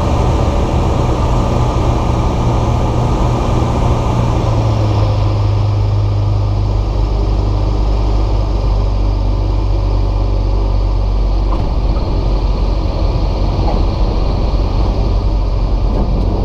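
Bristell light aircraft's engine and propeller at low power during the landing rollout, heard from inside the cockpit as a steady low drone. About five seconds in, the higher rushing noise drops away and the drone settles lower as the aircraft slows on the runway.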